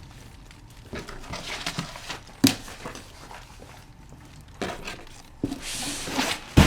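Cardboard box and packaging being handled and tossed aside: rustling and scattered knocks, with a sharp thump about two and a half seconds in.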